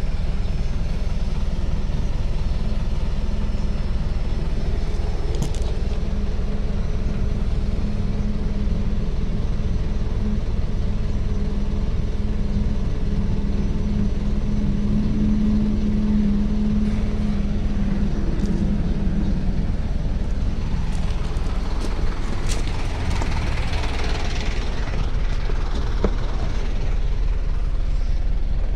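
Isuzu 4HK1 four-cylinder diesel engine idling steadily. A few clicks and a rustle come in about three quarters of the way through.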